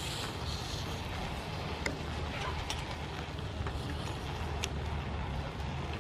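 A few scattered sharp clicks as a perforated metal skimmer knocks against river snail shells on a wire grill grate, over a steady low rumble and a light hiss.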